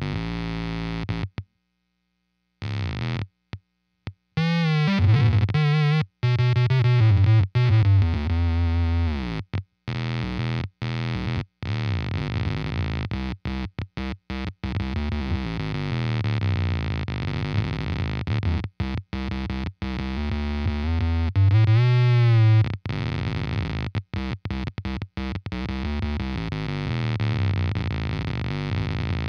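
Electric guitar played through an EarthQuaker Devices Bit Commander analog monophonic guitar synthesizer, giving buzzy synth tones with octave voices. The notes bend and slide in pitch and cut off abruptly many times.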